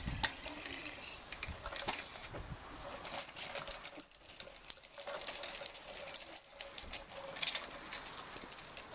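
Hard plastic wheels of a small ride-on toy rolling over brick paving, giving a steady run of small, irregular clicks and rattles.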